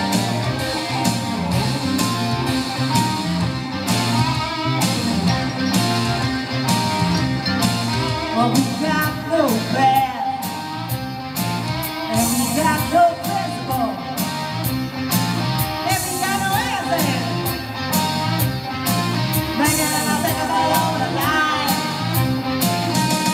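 Live rock music: an electric guitar over a steady beat, with a woman's lead vocal coming in about a third of the way through.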